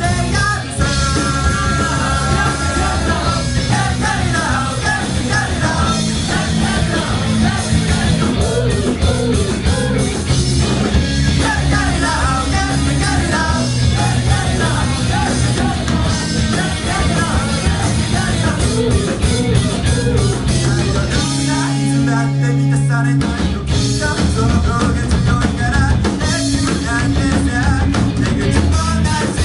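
Rock band playing a song with singing, electric guitars, bass and drum kit. A little past two thirds of the way in, the drums and cymbals drop out for a moment, leaving a held low note, then the full band comes back in.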